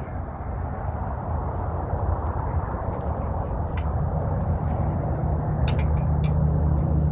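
Insects trilling steadily in a high, pulsing chorus. A low, steady hum builds underneath from about four seconds in, with a few sharp clicks near the end.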